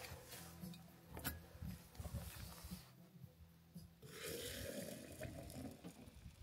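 Hot water poured from a Jetboil cooking cup into a glass French press onto coffee grounds, a hissing, splashing pour that starts about four seconds in. Before it comes a faint hiss with a single sharp click about a second in.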